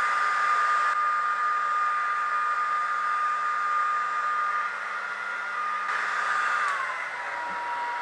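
AEG HT 5684 hair dryer blowing on cool shot: a steady rush of air with a high motor whine. Near the end the whine drops slightly in pitch and the sound gets quieter.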